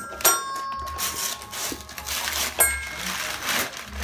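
Toy xylophone's metal keys struck twice by a baby's hand, each a sharp ding that rings on briefly: once about a quarter second in, again about two and a half seconds in.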